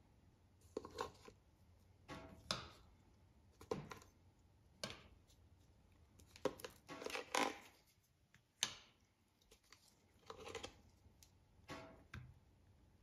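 Metal tongs scraping and tapping on a steel rolled-ice-cream cold plate while lifting ice cream rolls into a paper cup. The sounds are short and separate, about one a second.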